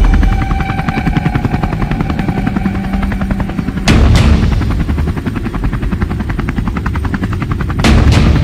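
Helicopter rotor sound effect, a fast, even chopping, with a heavy double hit about four seconds in and again near the end.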